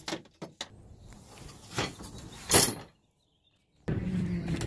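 Handling noise of a plastic folding table and gear being moved: light clicks and knocks, then one loud clatter about two and a half seconds in. The sound cuts out for about a second, then a steady low hum comes in.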